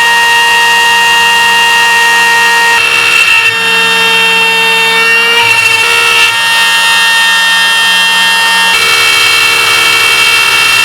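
CNC router spindle cutting wood with a 6 mm compression bit: a loud, steady high whine whose pitch steps up or down a few times during the cut.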